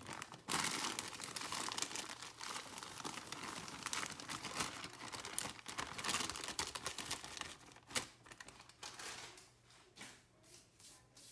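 A bag of flour crinkling and rustling as it is emptied into a bowl of beaten eggs, with the flour pouring out. The dense rustle lasts about eight seconds, then thins to a few scattered crackles near the end.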